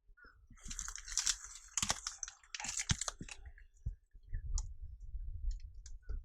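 Crunching, rustling noise with sharp clicks for the first three seconds or so. From about four seconds in, a low rumble takes over with a few scattered clicks.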